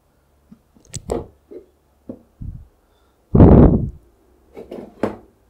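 Handling noise as a boxed PC power supply is turned over in the hands: a few clicks and light knocks, with one louder rubbing thump about halfway through.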